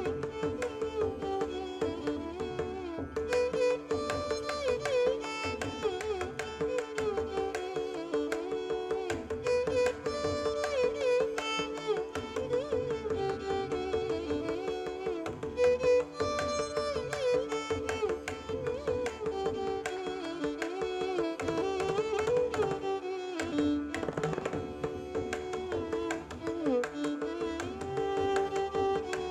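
Instrumental background music in Indian classical style: a melody with sliding notes over a steady drone, with light hand-drum strokes.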